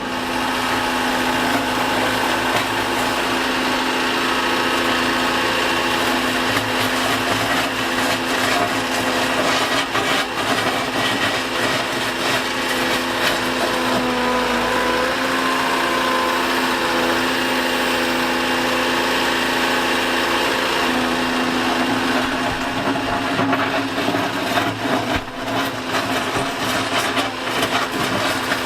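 Liebherr A 910 compact wheel excavator's diesel engine and hydraulics running steadily under load with a whine, overlaid by scraping and clattering knocks that come thicker near the end.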